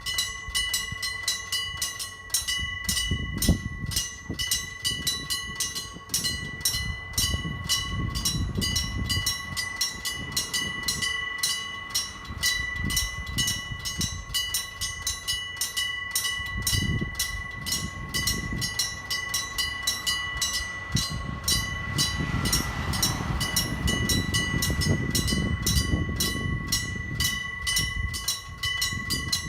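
Electric bells of a railway level crossing ringing fast and continuously, the two bells striking at different rates so their rings fall out of step. Underneath, the low rumble of a Hokuriku Railroad 8000-series train passing over the crossing swells and fades several times.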